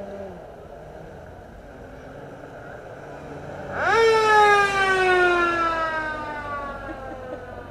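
A mechanical siren spins up sharply about four seconds in, then winds down slowly with a falling pitch over about three seconds, as a vintage military jeep passes on cobblestones.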